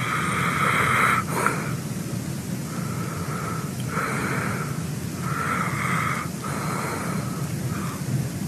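A man snoring with his mouth open: a string of breathy, wheezing snores, about one a second, with the first the longest and loudest, over a steady low hum.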